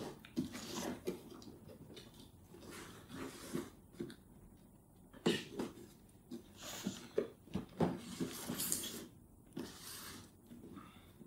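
Cardboard shipping boxes being handled on a table: packing tape slit with a small blade and boxes lifted and shifted, in short scrapes and rustles with quiet gaps. The busiest stretch comes in the second half.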